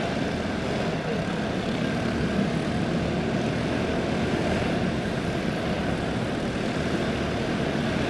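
A field of dirt-track racing karts with box stock Predator single-cylinder engines running together at racing speed, a steady blended engine buzz.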